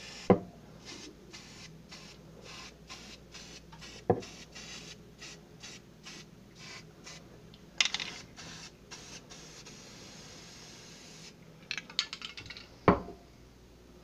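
Repeated short rubbing and scraping strokes of a tool working paint into the cracks of a microwave's metal floor, a few strokes a second, with three sharp knocks against the cavity.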